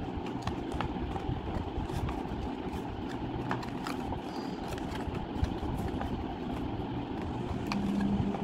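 Sheets of paper being handled and creased into a box, with faint scattered crinkles and clicks over a steady low background rumble.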